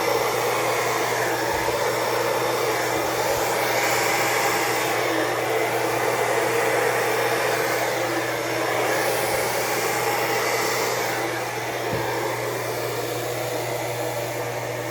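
Hair dryer running steadily, blowing wet acrylic paint outward on the canvas to open a bloom.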